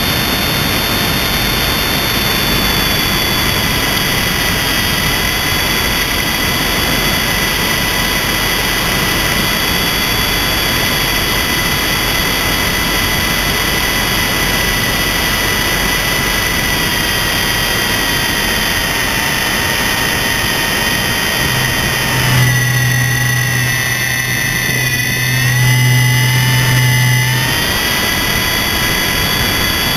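MJX RC helicopter's motor whining steadily with rotor noise, heard from a camera mounted on the helicopter. About two-thirds of the way through the whine dips and wavers in pitch and a low hum joins it for several seconds, then the steady whine returns.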